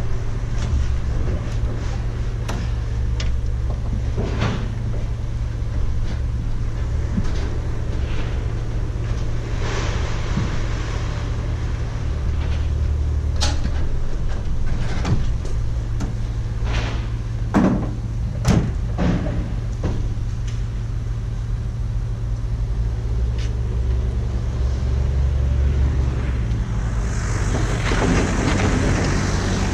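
A motor vehicle's engine running with a steady low drone, with scattered knocks and clicks over it; two louder knocks come a little past halfway.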